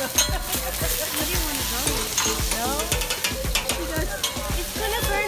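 Food sizzling on a hot teppanyaki steel griddle after a flare-up of flame, with many sharp ticks and clicks over the hiss.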